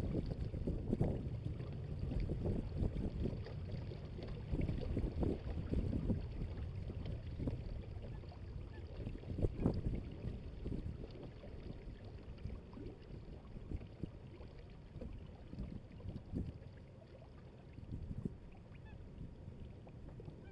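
Water rushing and slapping along the hull of a Hobie Adventure Island sailing kayak under way, mixed with wind noise on the microphone; uneven splashes, easing off about twelve seconds in.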